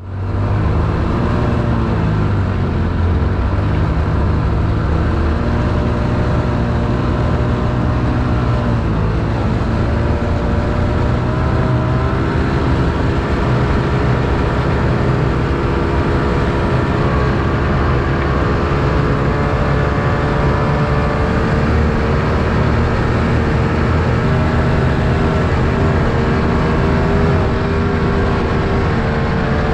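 Vehicle engine running under way, its pitch rising and falling a little with the throttle.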